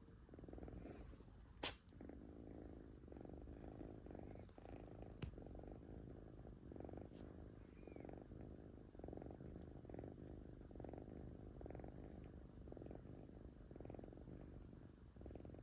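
Kitten purring, the purr swelling and fading about once a second with its breathing. About one and a half seconds in there is a single short, sharp click-like sound, the loudest moment.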